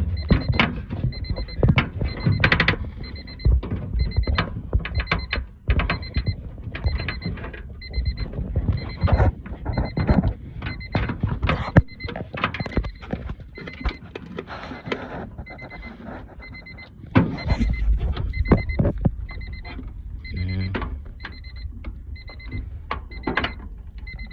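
A car's warning chime beeping steadily, about once a second, over scattered clicks and knocks of hands working on the door's handle and linkage parts.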